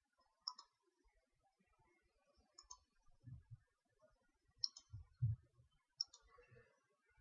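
Faint computer mouse clicks, four short clicks spaced a second or two apart, some of them doubled, with a couple of soft low thumps between them.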